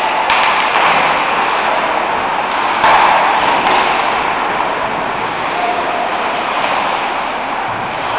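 Steady, loud hiss-like din of an ice hockey rink during play, with a sudden louder burst about three seconds in.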